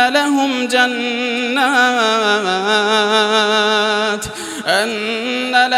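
A man's voice reciting the Quran in melodic tajweed style, holding a long drawn-out note with a wavering, ornamented pitch. About four seconds in the note breaks off briefly, then the voice glides back up and carries on.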